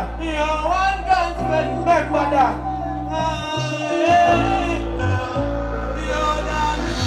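Male dancehall vocalist singing live into a microphone over a backing track with a steady bass line, through a stage PA.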